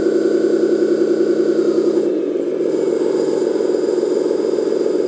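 Simulated truck engine sound from the RC hydraulic crane dump truck's sound unit, running steadily over the whir of its hydraulic pump while the crane is worked. The tone drops and changes character about two seconds in.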